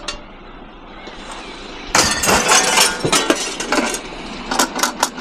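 Glass clattering and clinking, starting abruptly about two seconds in as a dense run of sharp knocks, then scattered clinks.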